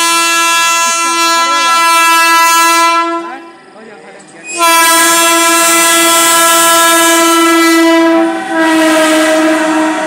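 WAG12 electric locomotive sounding its horn in two long blasts of about three and four seconds with a short break between. The horn's pitch drops slightly near the end as the locomotive passes, and the rumble of the coal wagons rises beneath it.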